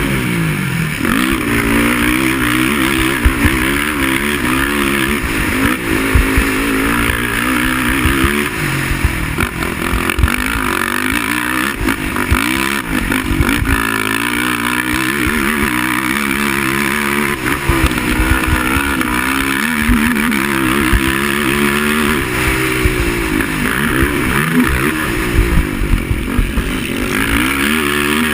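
Racing quad (ATV) engine revving up and down over and over, its pitch rising and falling every second or so as the throttle is worked, with low thumps and rushing noise over it.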